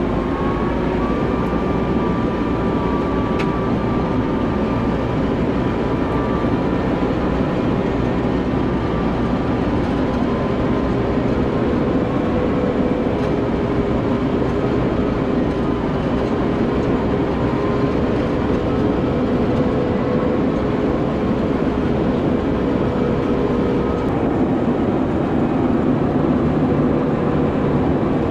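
Tractor engine running steadily under load while pulling a plow through a field, with a constant drone that holds one pitch throughout.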